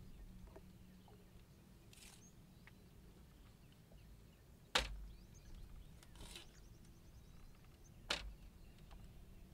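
Two sharp knocks of a small chopping knife striking bamboo, about three seconds apart, with the first the louder, and softer scraping sounds of the blade in between.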